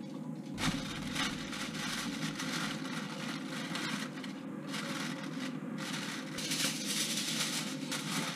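Aluminium foil crinkling and rubbing as it is pulled over a bowl and pressed down around its rim, louder near the end.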